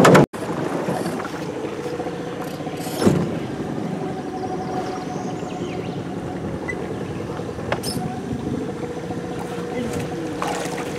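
A small boat motor running steadily with an even hum, one knock about three seconds in.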